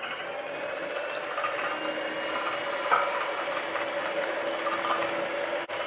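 Electric hand mixer running steadily with an even motor hum, beating sugar into a cake batter of curd and oil.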